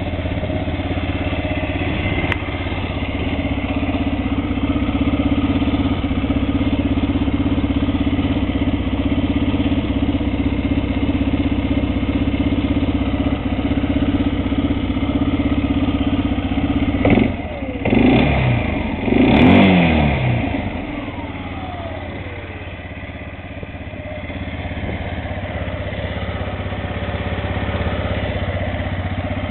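Arctic Cat ATV engine idling steadily, with a few quick throttle blips a little past halfway that rise and fall before it settles back to idle.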